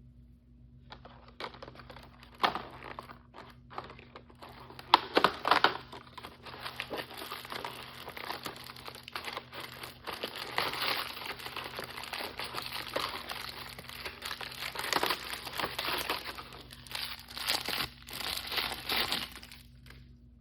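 Crinkly blind-bag packaging being handled and torn open, a dense crinkling with a few sharp louder crackles, starting about a second in and stopping just before the end.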